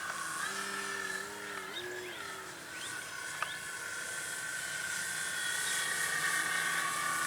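Electric motor and propeller of an E-flite Extra 330 RC aerobatic plane in flight, a steady whine whose pitch wavers up and down in the first couple of seconds, then holds steady.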